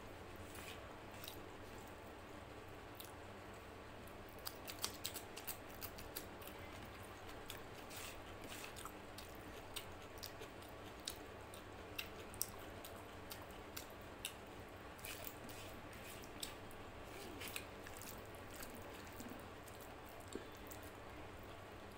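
Eating rice and mutton curry by hand: faint wet clicks and squishes of chewing and of fingers mixing rice on a plate, scattered irregularly, over a faint steady hum.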